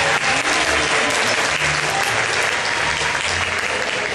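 Audience applauding: a steady, dense patter of many hands clapping at the close of a skating routine.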